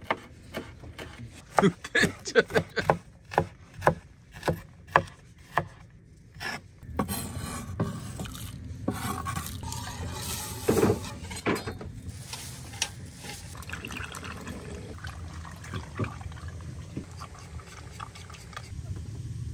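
Irregular sharp knocks of a knife chopping on a wooden cutting board, about two a second. About seven seconds in they give way to the steady sloshing and pouring of thick liquid: salted blood mixed with flour, stirred in a metal pot and poured from a ladle through a funnel to fill intestines for blood sausage.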